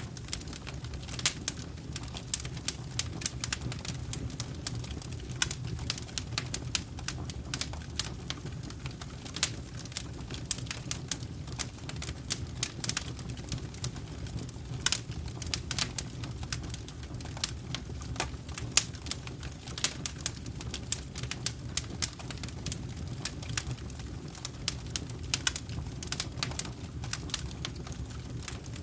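Wood fire burning in a fireplace, crackling with many irregular sharp pops over a steady low rumble of the flames.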